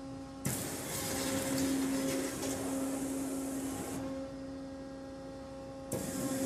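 Flow waterjet cutter's high-pressure water jet cutting a gasket sheet: a loud hiss starts suddenly about half a second in. After about four seconds it thins to a duller, quieter hiss, and it comes back at full strength near the end. A steady machine hum runs underneath.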